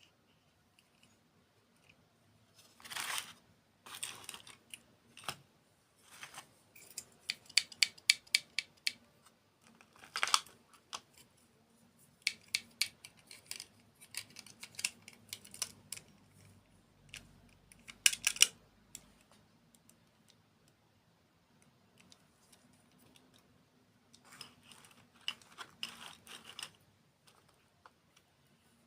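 Irregular light clicks and taps of small hard objects being handled, some in quick runs, with a few short rustling bursts.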